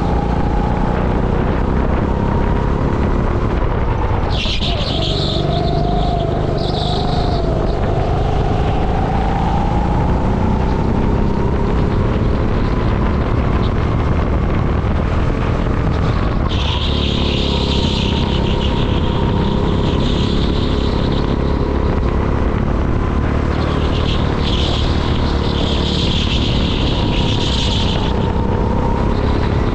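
Racing kart engine running hard, heard from the driver's seat, its pitch rising and falling with throttle as the kart laps the circuit. A hissing noise comes in briefly about four seconds in and again for much of the second half.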